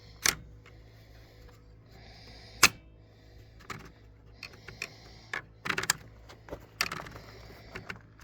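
A series of separate sharp clicks and knocks from parts of an outboard motor being handled during a primer knob repair, the loudest about two and a half seconds in, over a low steady hum.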